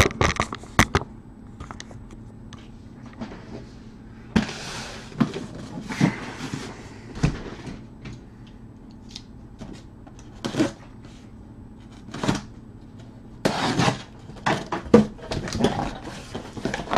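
A cardboard shipping case being handled on a table and opened: scattered knocks and thumps, with several short bursts of scraping and rustling cardboard as the flaps are worked open.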